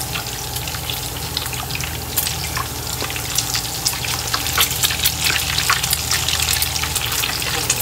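Beaten egg frying in hot oil in a wok, a dense sizzling and crackling with many small pops. A steady low hum runs underneath.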